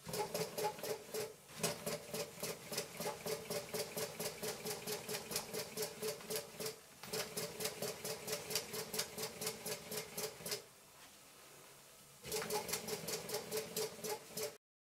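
Birmingham Dribbler brass live-steam toy locomotive running on little steam pressure, its engine beating out a rapid ticking rhythm of about five beats a second. It falters briefly twice, goes quiet for over a second near the end, then picks up again before stopping.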